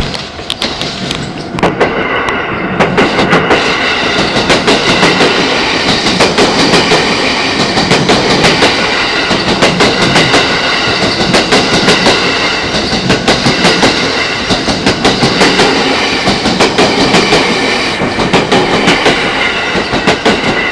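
Train passing close by over a level crossing, its wheels clattering rapidly over the rail joints, building to full loudness about two seconds in and tailing off near the end.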